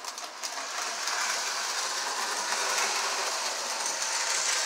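Lionel O gauge 8632 4-4-2 toy steam locomotive and tender running steadily around three-rail track: the motor and gears whir while the wheels rattle over the rails.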